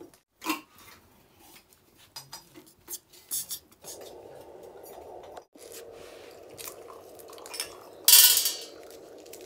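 Scattered clicks and rustles of dried maize cobs being handled over a metal plate, then a loud metallic clatter of dishes a little after eight seconds in. A low steady hum runs underneath from about four seconds in.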